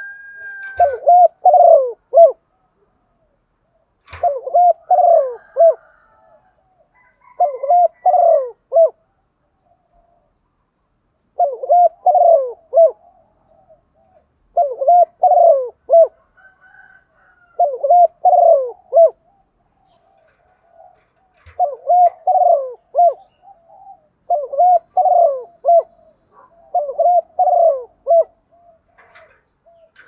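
Female spotted dove cooing, its call used to lure wild males: about nine short phrases of several low coo notes each, repeating every three to four seconds.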